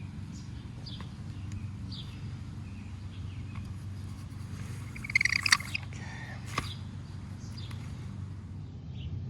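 Outdoor background: a steady low hum, with short bird chirps scattered through and a brighter run of chirps about halfway in, plus a few light clicks.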